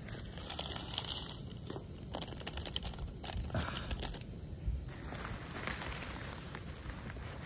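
Plastic wrapper of an instant ramen bag crinkling and tearing as it is pulled open by hand, a run of short crackles and rustles.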